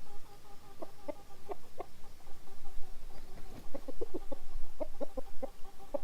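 Chickens clucking in short, irregular calls, coming more thickly from about halfway through, over a faint steady hum.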